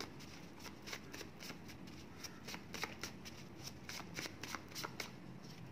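A deck of word cards being shuffled by hand: a faint, uneven run of quick card snaps, several a second.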